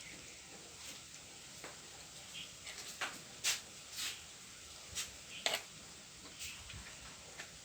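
Faint cooking sizzle from a pot of curry on the fire: a steady low hiss with scattered sharp crackles and pops, at irregular intervals.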